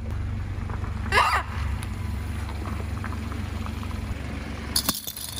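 A car's engine runs with a steady low hum while it rolls slowly forward. About a second in, a rubber screaming-chicken toy gives one short squawk that rises in pitch.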